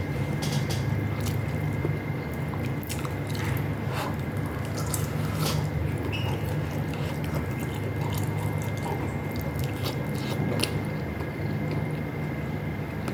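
Close-up mouth sounds of someone chewing canned beef loaf and rice: soft wet chewing with scattered clicks and smacks, over a steady low hum.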